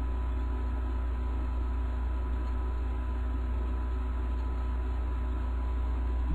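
Steady low electrical hum with faint hiss and a few thin steady tones; no speech.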